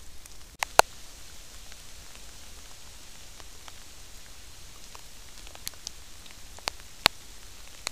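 Steady light rain falling, with a few sharp ticks of single drops landing close by: two about a second in and several more near the end.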